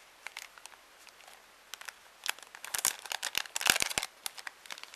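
A small bag of paper die-cuts being opened and handled, crinkling and rustling with quick crackles. The crackles are sparse at first and get much busier from about two seconds in.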